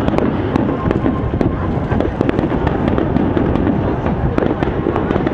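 Aerial fireworks display: shells bursting in rapid succession, many sharp cracks over a continuous low rumble.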